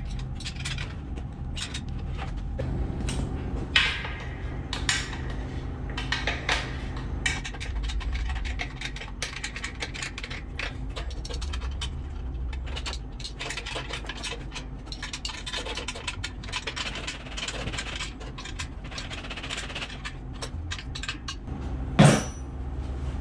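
Metal clinking, scraping and tapping of hand work on a Campbell Hausfeld belt-drive air compressor as its drive belt is fitted, over a steady low hum. A single sharp knock near the end is the loudest sound.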